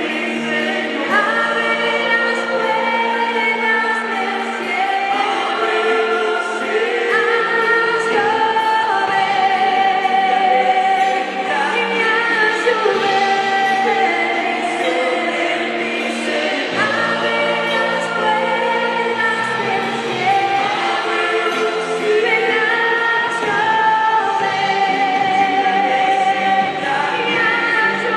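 Worship team singing a gospel worship song together in a choir-like group over instrumental backing, with long held notes.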